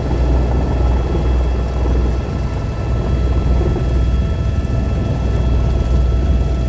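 Tour helicopter's turbine engine and rotor running, heard from inside the cabin: a steady low rotor rumble with a whine of several steady high tones over it.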